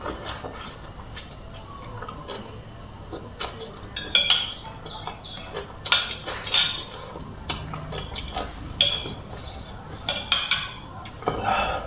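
Someone eating rice vermicelli noodles: slurping and chewing, with a metal fork and spoon clinking and scraping against a plate. Several sharp clinks; the loudest come about four and six seconds in.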